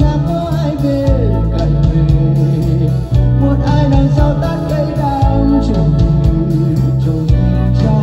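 Music: a slow pop ballad, a lead melody with slides and vibrato over a backing track with bass and guitar.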